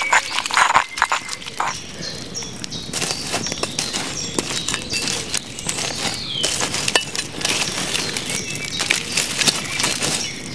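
A spoon scraping butter in a granite mortar for about the first two seconds, then an open wood fire crackling and popping, dense and steady.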